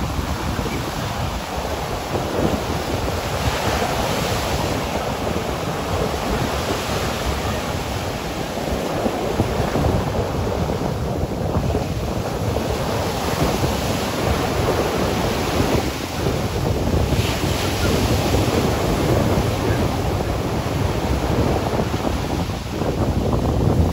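Ocean surf breaking and washing up a sandy beach, a steady rush of foaming waves, with wind buffeting the microphone.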